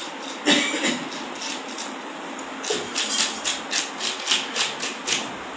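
Scales being scraped off a large river fish with a blade, a rasping scrape stroke after stroke. One loud stroke comes about half a second in, then from about halfway a quick, even run of strokes, nearly four a second.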